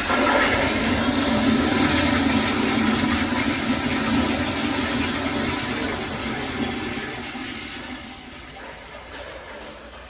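Kohler Kingston wall-hung toilet flushing through its wall-mounted flush valve: a strong rush and swirl of water through the bowl that eases off over the last few seconds as the flush finishes.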